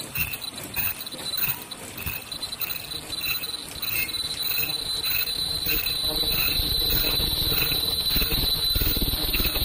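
Fully automatic face mask production machine running: a regular mechanical beat about twice a second over a steady high whine. It grows louder and fuller about halfway through.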